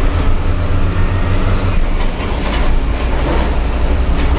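Isuzu Giga 285 PS truck's diesel engine running while the truck drives, heard from inside the cab as a steady low drone with road noise.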